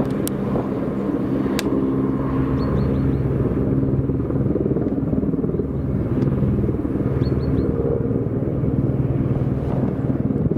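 Two Mi-8-type military helicopters circling low overhead: the steady, pulsing drone of their main rotors and turbine engines. A few faint, short high chirps sound over it.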